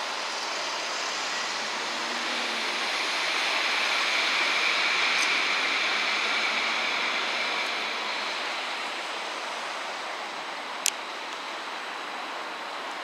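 A CAT Urbos 3 tram rolling slowly along the depot track: a steady rushing sound that swells midway and then eases, with a faint high whine over it. A single sharp click comes near the end.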